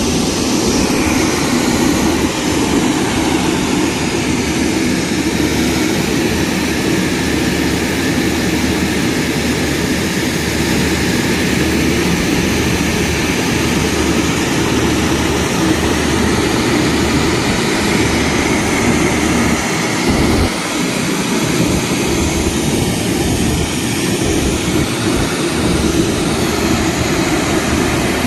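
Rosenbauer fire truck's roof turret spraying a water jet, a steady loud rushing over the drone of the truck's engine driving the pump.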